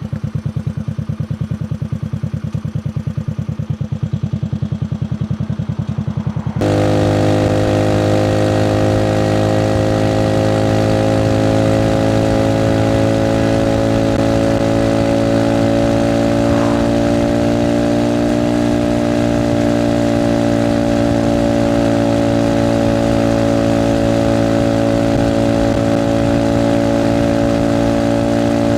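Alpha moped engine, first a low, evenly pulsing putter, then, about six and a half seconds in, an abrupt change to a steady, higher running note held at cruising speed, its pitch creeping slightly upward.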